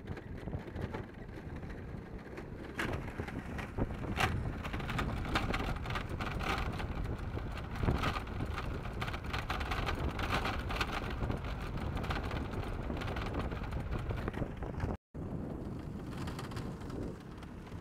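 Wildfire burning: dense crackling and popping over a steady low rumble of wind on the microphone. The sound drops out for an instant near the end.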